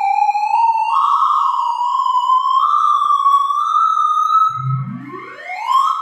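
Computer-synthesized sorting-algorithm tones, whose pitch follows the values being accessed. One electronic tone climbs slowly in small steps, then about four and a half seconds in a quick rising sweep runs from low to high: the pass over the finished, sorted array at the end of the sort.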